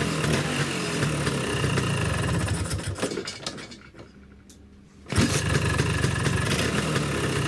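Vespa two-stroke engine with a Polini 221 cylinder kit running, then shut off about three seconds in and falling quiet. A little after five seconds in it is kick-started and catches at once, running again: a clean start at the very first kick.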